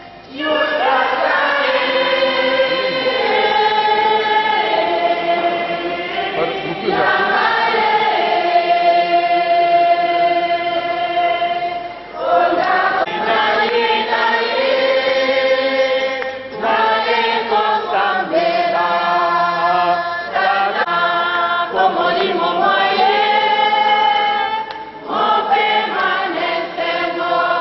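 A choir singing a slow piece in long held notes, phrase after phrase, with a brief pause between phrases three times.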